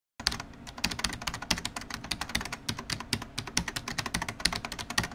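Computer keyboard typing sound effect: rapid, irregular key clicks that start just after the beginning and cut off suddenly at the end.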